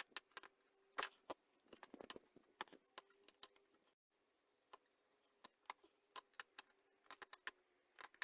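Faint, irregular metallic clicks and taps of a hand tool working on the clutch master cylinder's mounting nuts, a few every second with short pauses between.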